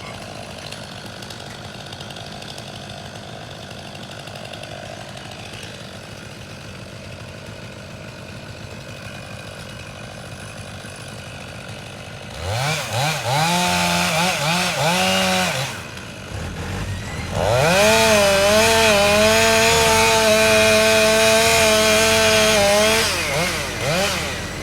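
Two-stroke chainsaw idling, then revved to full throttle twice in a long cut, its pitch sweeping up at each rev and wavering and sagging under load, with a short drop in between.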